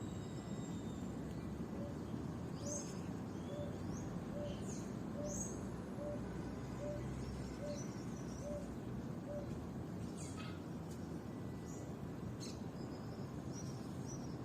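Birds chirping: scattered short high chirps, with a soft low note repeated about twice a second for several seconds, over a steady low background rumble.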